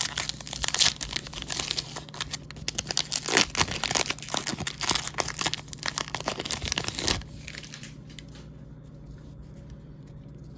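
Trading-card pack wrapper being torn open and crinkled by hand: dense rustling and tearing that stops about seven seconds in.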